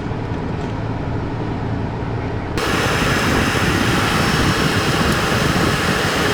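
Toyota 4Runner engine idling steadily while the brakes are bled. About two and a half seconds in, a loud steady hiss starts suddenly and keeps going.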